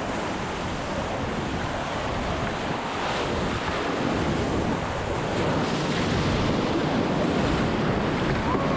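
Whitewater rapids rushing and splashing around an inflatable oar raft as it runs through them. The noise grows louder from about four seconds in as the raft drops into the waves.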